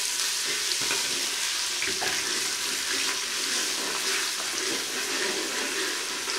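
Ghee sizzling steadily with ginger-garlic paste frying in an aluminium pressure cooker, stirred with a slotted metal spoon.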